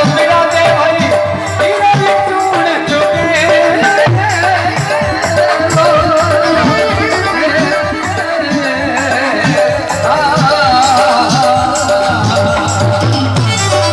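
Folk devotional bhajan music: a singer's voice with hand drum and rattling percussion.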